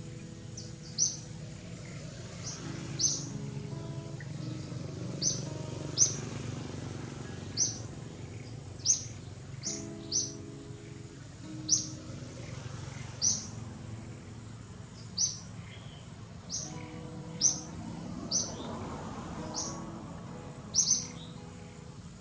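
A bird chirping over and over, single short high chirps about every second and a half, over soft background music.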